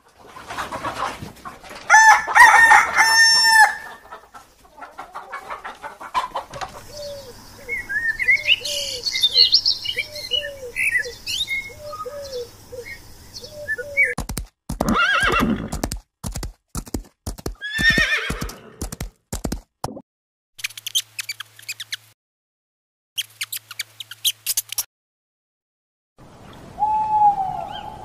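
Chickens: a rooster crows loudly, then hens cluck in a steady run of calls with higher chirps over them. A horse follows, cantering with a quick, irregular run of hoof thuds, and near the end an owl gives one falling hoot.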